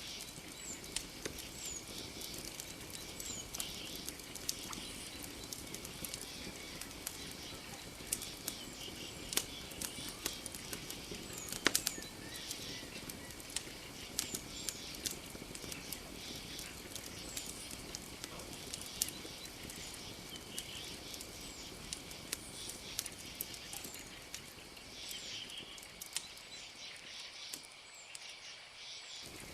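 Campfire crackling, with frequent sharp pops, over a steady night background that carries a faint high hum and short, falling high-pitched chirps every second or two.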